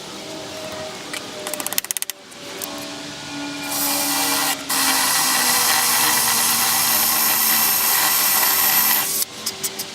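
Power drill boring a hole: a short run of rapid clicks, then the drill running steadily under load for about five seconds, with one brief stop about a second into the run.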